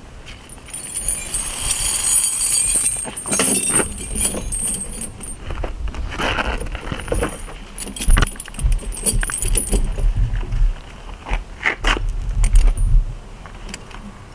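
Steel truck tire chains jangling and clinking as a snow chain is lifted and draped over a truck tire, with many sharp metal clicks and some heavier low thuds in the second half.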